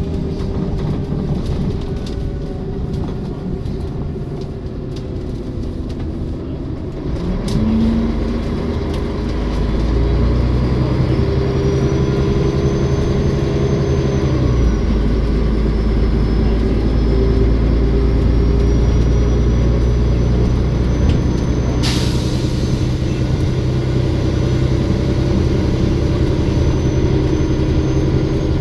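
Olympian double-decker bus engine running and pulling, its note stepping up under load partway through, with a thin high turbo whine rising and falling above it. A single sharp click about two-thirds of the way through.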